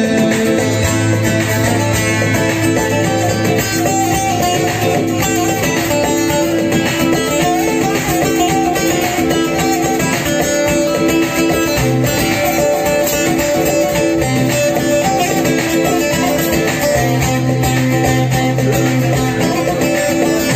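Instrumental passage on a bağlama (long-necked Turkish saz), its strings plucked in quick runs, over an accompaniment of long held bass notes.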